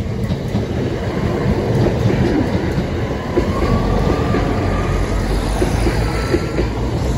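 A Class 170 Turbostar diesel multiple unit passes close by at speed, its engines running and its wheels rumbling and clattering over the rails in a steady, loud rush.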